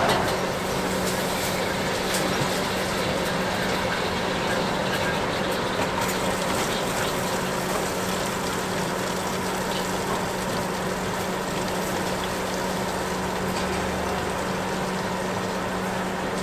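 Tap water running steadily into a basin, with a steady low hum underneath.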